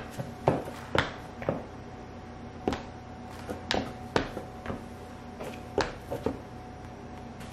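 Heels of high-heeled sandals tapping on a wooden floor as the wearer steps about: a dozen or so sharp clicks at an uneven pace.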